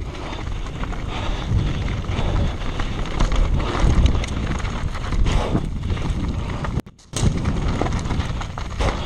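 Canyon Sender downhill mountain bike ridden fast down a dirt and gravel trail: a steady rush of wind on the microphone, with the tyres and the bike rattling over the stones. The sound drops out for a moment about seven seconds in.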